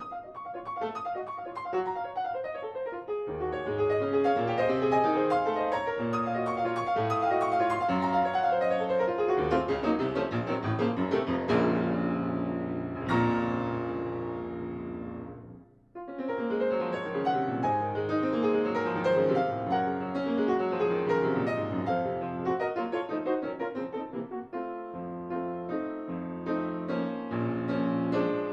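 Piano music: a stream of notes that stops briefly about halfway through, then starts again.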